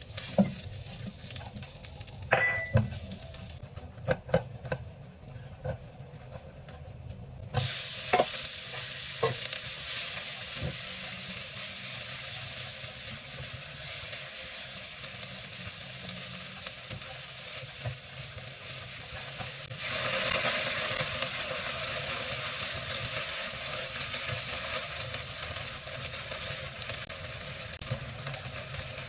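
Utensils clicking and knocking against a pan, then food hitting hot oil about seven seconds in and sizzling steadily as it is stir-fried, the sizzle growing louder near twenty seconds in.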